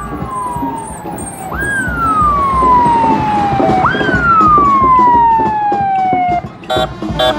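Ambulance siren wailing. Each cycle rises quickly and then falls away slowly, about every two seconds, and the siren stops about six seconds in.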